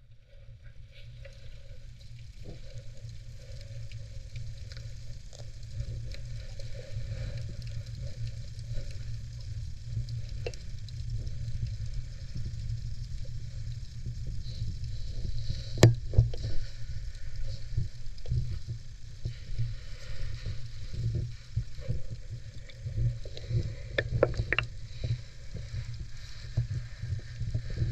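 Underwater sound picked up by a GoPro held just below the surface in shallow sea water: a steady low rumble of moving water with a fine crackling fizz over it and scattered small clicks. One sharp click about halfway through is the loudest thing, with a few more clicks near the end.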